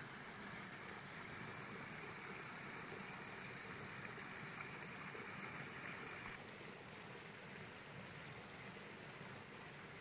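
Stream water rushing and splashing over rocks in a steady hiss; about six seconds in the rush turns slightly softer and duller.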